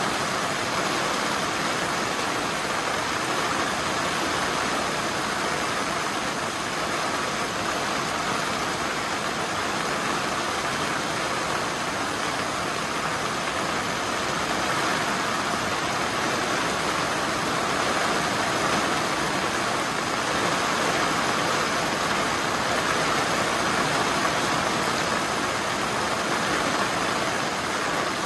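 Heavy rain falling on a plastic-covered greenhouse roof, a loud steady hiss that swells a little past the middle.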